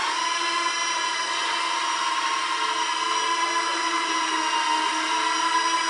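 A small ducted-fan quadcopter's four electric motors and propellers running with a steady, high-pitched whine made of several pitches at once, wavering slightly as the throttle shifts.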